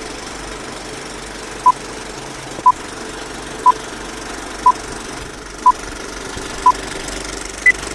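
Countdown intro beeps: a short tone once a second, six times, then a single higher-pitched beep near the end, over a steady whirring hum.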